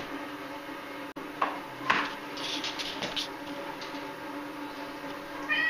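Knocks and clinks of kitchen items being handled: two sharp knocks about a second and a half and two seconds in, then a quick run of light clinks. Near the end a cat starts to meow.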